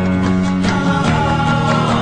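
Background music with sustained tones and a steady beat.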